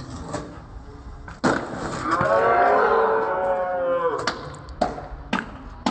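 Skateboard wheels and deck knocking on concrete as a trick is tried and the board gets away from the rider, several sharp clacks in all. Midway, a long drawn-out call of about two seconds, falling in pitch at the end, is louder than the board.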